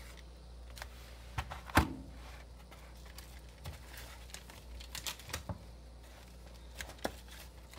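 Rustling and crinkling of bubble wrap and a cardboard box as wrapped items are lifted out and set down on a wooden desk, with scattered clicks and one sharp knock a little under two seconds in.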